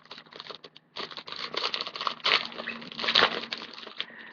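Foil wrapper of a Yu-Gi-Oh booster pack crinkling and being torn open, a dense crackling that starts about a second in and dies down near the end.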